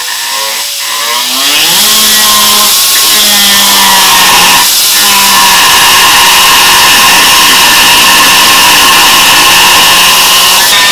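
Handheld power tool winding up, its pitch rising over the first couple of seconds, then running steadily at full speed, with a brief dip about halfway through.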